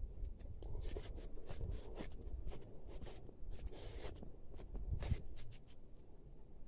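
Footsteps and rustling of someone walking along a dirt path while holding the recording phone: a string of irregular scuffs and clicks over a low rumble of handling noise, with a short hiss about four seconds in.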